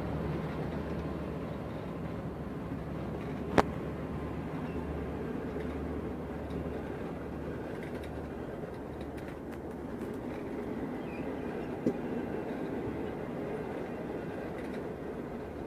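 Passenger coaches rolling slowly past, a steady rumble of wheels on rails. A sharp knock comes a few seconds in, and a fainter one later.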